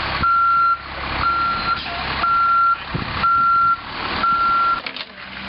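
Backup alarm of a heavy work vehicle beeping as it reverses: five evenly spaced beeps, about one a second, on a single high pitch, over the rumble of the vehicle's engine, stopping near the end.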